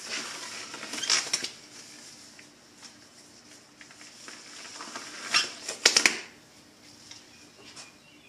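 Disposable gloves being pulled onto the hands: two bouts of rubbery rustling and stretching with sharp snaps, one about a second in and a louder one around five to six seconds in.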